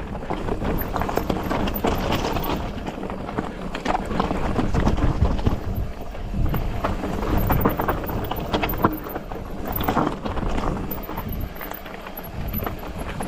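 Polygon Siskiu T8 mountain bike coasting fast downhill over loose, rocky trail: tyres crunching on gravel under a constant rumble, with many irregular sharp knocks as the wheels hit rocks and the bike rattles.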